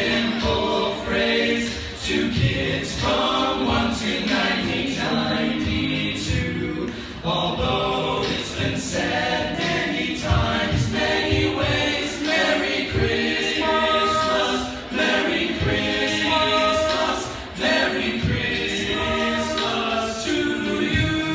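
A choir singing in harmony, several voices held and changing together.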